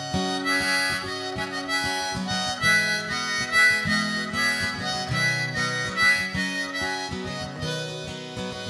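Harmonica playing a melodic solo line over steady guitar strumming.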